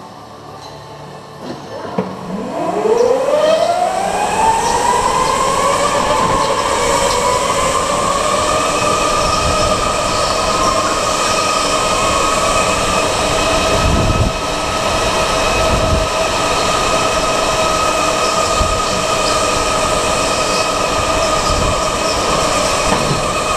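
Electric go-kart motor whining, rising steeply in pitch as the kart accelerates from about two seconds in, then holding a steady high whine at speed. A couple of brief low thumps come in the middle.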